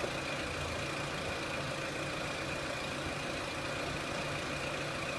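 Renault Clio 1.6 petrol four-cylinder engine idling steadily, its crank sensor connector plugged back in after coming loose had made it cut out.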